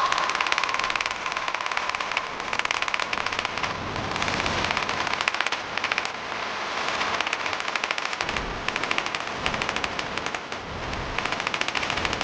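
Rapid, machine-gun-like hammering on hot steel, many blows a second in long runs with brief pauses, as the bar is drawn out square, then octagonal, then round.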